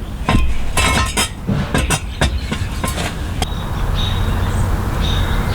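Metal clicks and clanks from a floor jack lifting the car under the rear differential and jack stands being set in place, a quick irregular run of knocks that gives way after about three and a half seconds to a steadier scraping noise.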